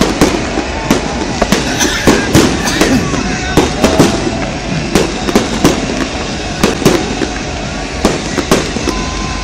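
Aerial fireworks bursting overhead in a rapid, irregular barrage of sharp bangs, several a second.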